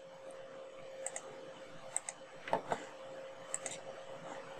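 Computer mouse button clicking about four times, each click a quick double tick, over a faint steady hum.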